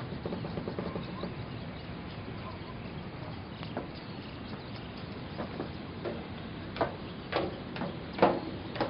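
Footsteps going down stairs: a handful of sharp steps in the last few seconds, the loudest near the end. A faint quick rattle comes just after the start.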